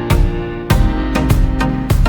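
Background music with a steady beat and sustained melodic instruments.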